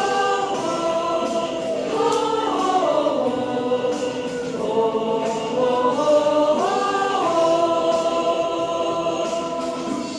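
Choir singing long held notes with no words made out, with backing music behind it. The notes slide slowly from one pitch to the next, and the sound drops off at the very end.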